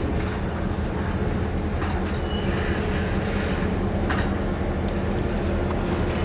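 Diesel locomotive engine running with a steady low drone as it pulls covered hoppers slowly over rough track. A few sharp metallic clanks and a brief high squeal come from the wheels and rail.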